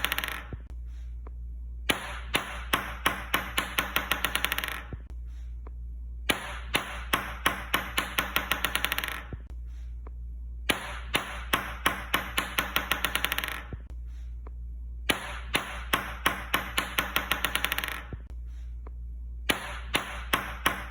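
A ping-pong ball dropped on a hard surface, bouncing with sharp clicks that come faster and fainter until it settles; the drop repeats about every four and a half seconds, with a low steady hum underneath.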